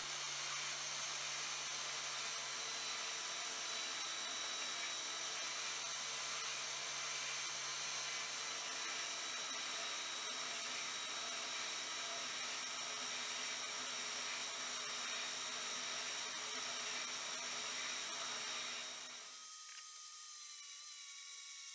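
Small benchtop bandsaw running steadily, its blade cutting a metal wrench blank. Near the end the cutting noise stops and the motor's whine falls as it slows.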